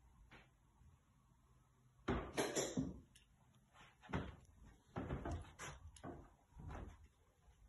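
A door being opened and handled: a series of knocks and clunks, the loudest cluster about two seconds in, followed by several smaller knocks.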